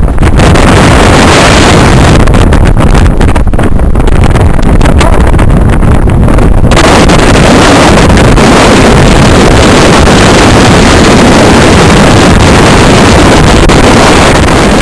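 Extreme mountain wind blasting across the camera's microphone, loud and continuous enough to overload the recording, gusting at first and turning steadier with more hiss after about seven seconds.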